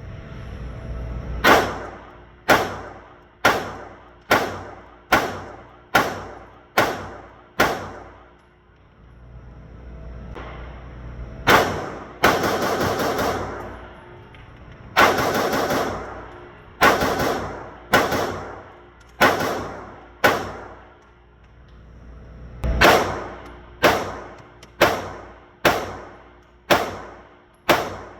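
Handgun shots fired in steady strings, about one a second, with a short ringing echo after each, and a fast run of shots in the middle.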